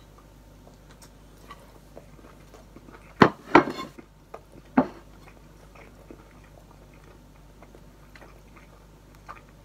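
A person biting into and chewing a mouthful of bacon cheeseburger pizza: faint, irregular chewing sounds, with a few sharper clicks about three to five seconds in.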